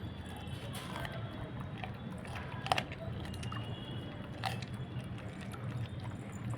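Pitbull puppy chewing and biting raw meat: wet chewing with scattered sharp clicks, the loudest a few seconds in, over a steady low hum.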